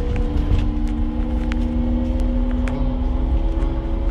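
Taxi engine and road noise heard from inside the cabin: a steady low rumble with an engine hum that climbs slightly in pitch, and a few faint light ticks.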